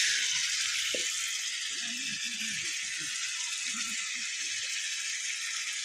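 Chicken curry frying in a pot: a steady sizzle, with faint voices underneath.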